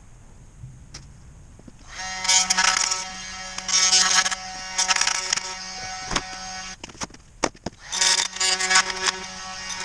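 Electric power saw starting about two seconds in and cutting through a foam-filled tire in surges, its motor whining steadily under a loud rasping hiss. It stops briefly with a few sharp knocks, then starts cutting again near the end.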